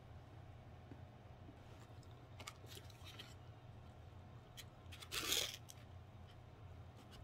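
Foil-lined paper lid of a cup ramen being bent back and folded, a brief crinkling rustle about five seconds in, with lighter rustles a couple of seconds before, over a faint steady hum.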